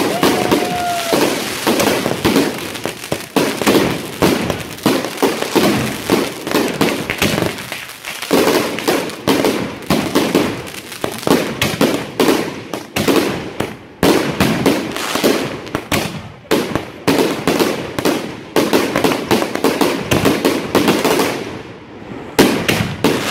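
Aerial fireworks going off in rapid succession, launches and bursting shells with crackle, one report after another with hardly a gap. A short whistle sounds right at the start. The volleys ease briefly about 21 seconds in before a loud bang near the end.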